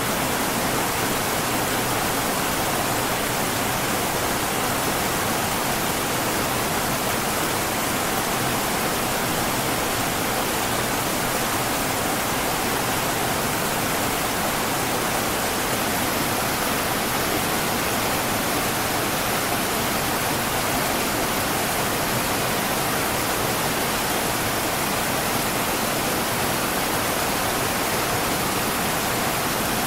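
River water rushing and babbling in a steady, unbroken stream.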